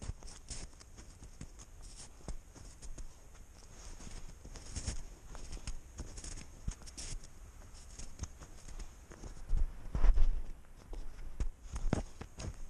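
A cat's footsteps in deep snow, picked up by a camera strapped to the cat: irregular soft crunches and scuffs close to the microphone, with a few louder bumps about ten and twelve seconds in.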